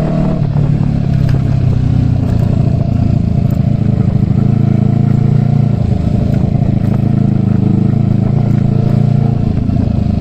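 Kawasaki Eliminator motorcycle engine running steadily while the bike is ridden.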